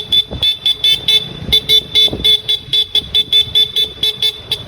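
Motorcycle horn honked over and over in rapid short beeps, about four or five a second.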